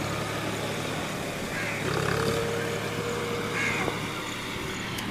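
An engine running steadily with a low hum. Three short higher-pitched sounds come over it, about two seconds apart.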